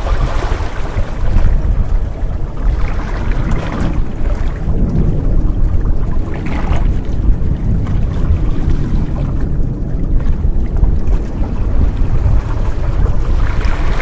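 Small sea waves lapping and splashing against shoreline rocks, with a surge every few seconds, over a constant low rumble.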